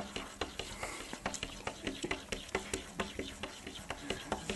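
A cat's claws scratching and tapping on window glass in a quick, irregular series of clicks and scrapes, about three or four a second, as it paws at the glass.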